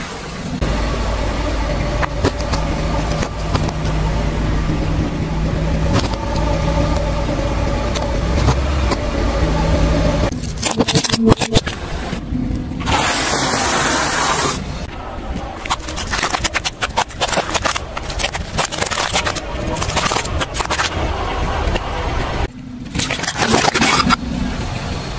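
Car engine running low as a tyre rolls slowly over objects and crushes them: a steady hum for the first half, then many sharp cracks and crunches, with a loud burst of crackling near the middle.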